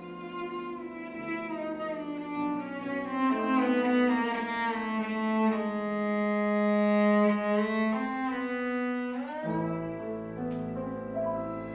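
A chamber group's bowed strings, violin and cello, playing long sustained notes, with the lines sliding upward into new notes about nine seconds in.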